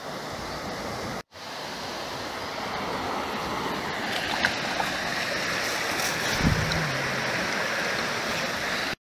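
Shallow river water rushing over stones, heard close to the surface, as a steady wash that cuts out for an instant about a second in. A few faint clicks and one dull thump come about six seconds in.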